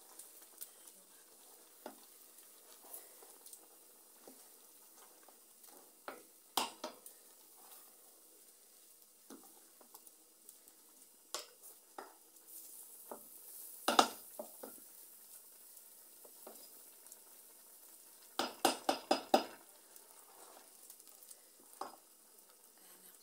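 Wooden stirring stick knocking and scraping against a metal cooking pot as boiling leafy greens (akeyo) are stirred, over a faint steady sizzle from the pot. The knocks come at scattered moments, with a quick run of about six near the end.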